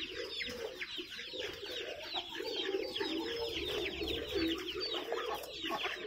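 Caged birds at a poultry and pigeon stall calling all at once: a dense chorus of high, quick peeps, each falling in pitch, like young chicks, over lower calls from the pigeons and fowl.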